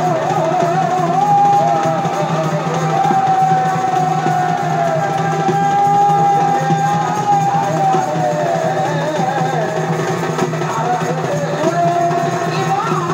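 Chhau dance music played over horn loudspeakers: a reed-pipe melody held in long, wavering notes with bends and ornaments, with drums beneath.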